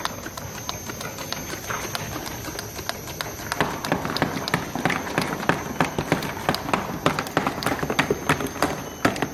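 Single-sided automatic labeling machine running: bottles clacking and knocking along the conveyor as labels are applied, a rapid irregular clatter that gets busier about three and a half seconds in. A thin steady high whine runs underneath.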